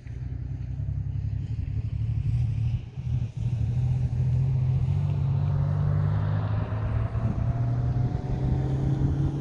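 Motor vehicle engine running with a steady low hum that grows louder over the first few seconds. A rising whine joins it in the second half, as when the vehicle speeds up.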